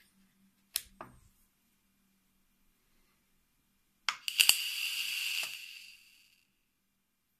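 Two sharp clicks about a second in. Then, about four seconds in, a rebuildable atomizer's coil is fired on a Geekvape 521 Tab: e-liquid hissing and crackling on the hot coil for about two seconds before fading out.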